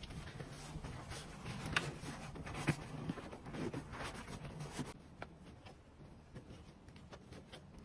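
Light rustling and scraping of a faux-leather seat cover being pushed and tucked into the seat by hand, with scattered small clicks. It grows quieter after about five seconds.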